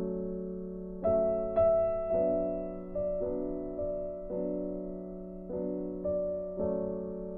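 Gentle background piano music: a slow line of struck notes, about two a second, each fading away, loudest a second or two in.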